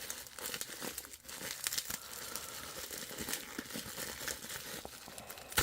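Paper packaging crinkling and rustling as it is handled and pulled open, with a run of irregular crackles and a sharper click near the end.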